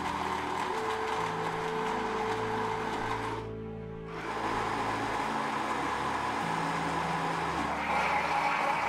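Electric countertop blender running, its motor and blades churning a milkshake, over background music with held notes. The blender noise drops out briefly about three and a half seconds in, then carries on.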